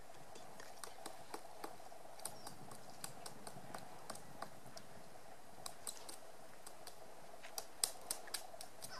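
Magellanic woodpecker pecking and prying at lenga bark while foraging for a grub: scattered, irregular light taps, with a quicker run of louder taps near the end.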